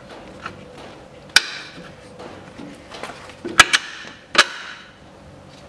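Sharp metallic clinks of a steel bolt being fed through the front strut's lower bracket and the steering knuckle, each with a short ring: one about a second and a half in, a quick cluster around three and a half seconds, and another just after four.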